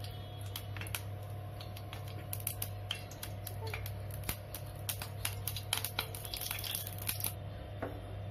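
Mustard oil heating in a pan on a gas stove: scattered small crackles and clicks over a steady low hum.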